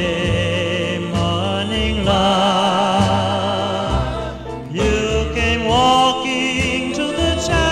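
Background music: a song with a wavering melody line over a steady bass.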